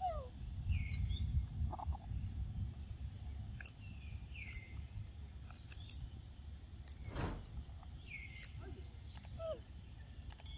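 Outdoor ambience of steady, high-pitched insect chirring, with a few short falling calls scattered through it and a low rumble that is strongest in the first couple of seconds.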